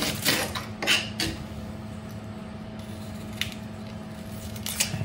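Kitchen knife cutting a red onion on a plastic cutting board: a few sharp taps of the blade on the board in the first second or so, then quieter peeling of the onion skin, with another tap or two near the end. A faint steady hum sits underneath.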